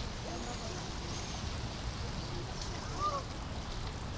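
Ambient background of distant people's voices in short snatches over a steady low rumble and hiss.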